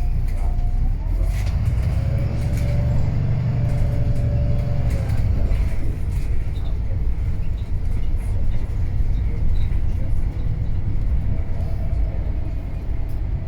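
Wright Pulsar 2 bus's Cummins ISB diesel engine and Voith automatic gearbox running under way: a steady low rumble. A level whine rides over it from about two seconds in to about five seconds in.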